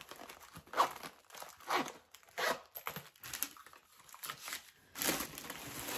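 Packaging crinkling and rustling in several short bursts about a second apart as items are handled in a box.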